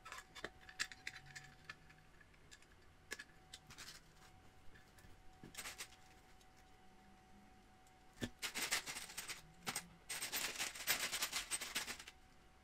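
Hand assembly of a small RC buggy chassis: scattered light clicks and taps of small parts and screws being handled and fitted. Then, about two-thirds of the way in, two stretches of crinkling and rattling, as a small plastic bag of hardware is rummaged through.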